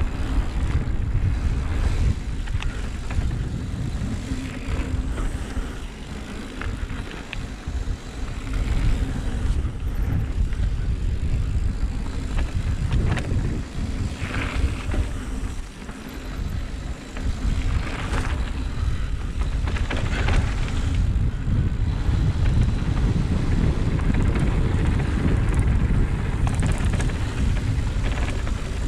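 Mountain bike descending a dirt trail: tyres rolling over the ground and the bike clattering over bumps, with wind rumbling on the microphone throughout.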